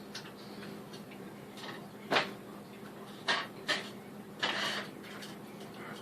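Kitchen handling sounds while cooking: a few short knocks and clatters of utensils or cookware, with a longer scrape or rustle about four and a half seconds in, over a low steady hum.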